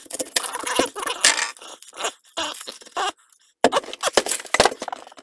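Dry, papery yellow-onion skin crackling and tearing as it is peeled off with a knife. An irregular run of crisp crackles, with a brief silent break a little past the middle.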